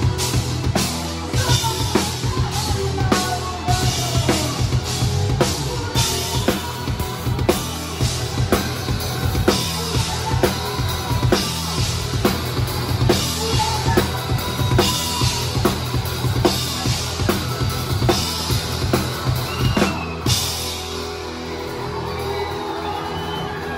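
Acoustic drum kit played live with a rock band: kick, snare and cymbals drive a steady beat over bass and guitar. About twenty seconds in, the drummer ends with a cymbal crash and the drums stop, leaving the rest of the band ringing.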